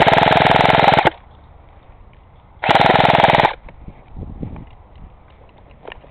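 An airsoft gun firing two rapid full-auto bursts: the first lasts about a second, and a shorter one follows about a second and a half later.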